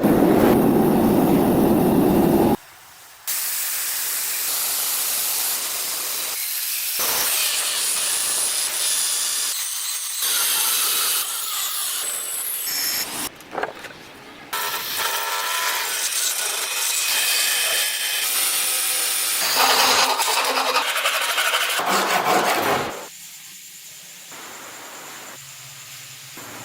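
Metalworking noise in a run of short edited clips: mostly steady grinding and sanding of steel, a harsh rasping hiss, with abrupt changes in sound between clips.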